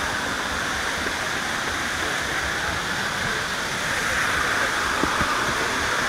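Steady rush of falling water from a nearby waterfall, with a few faint knocks of footsteps on wooden trail steps.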